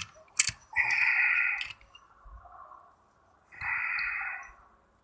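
Parts of a seized chainsaw being worked apart by hand: a sharp metal knock, then two grating scrapes about a second long each, metal and plastic grinding against each other.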